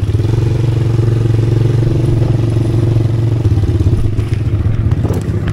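ATV engine running steadily at riding speed, a close, rapid low pulse.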